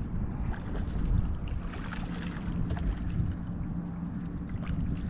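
Wind and water noise around a small skiff, with a faint steady hum underneath and a few light scattered clicks.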